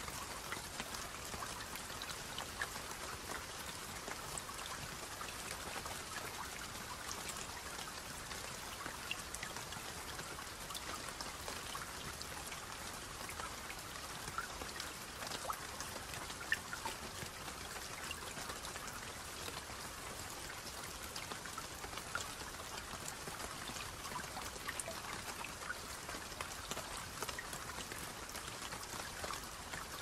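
Light rain falling on grass with a trickle of water from a downspout: a steady hiss dotted with many small drop sounds.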